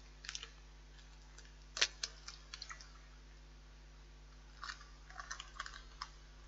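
Faint crunching and clicking of an eggshell being broken open and pulled apart over a bowl, in scattered small bursts bunched about two seconds in and again near the end.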